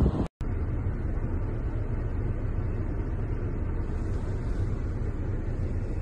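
Steady low rumble of a vehicle running, heard from inside it, after a brief dropout to silence just after the start.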